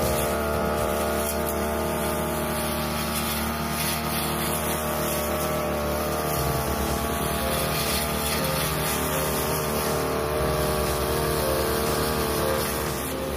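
A 42cc brush cutter's engine running steadily at high speed as its short metal blade cuts low lawn grass.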